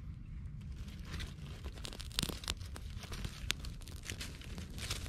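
Small campfire of dry twigs and sticks crackling, with irregular sharp pops and snaps; two louder snaps come a little after two and about three and a half seconds in.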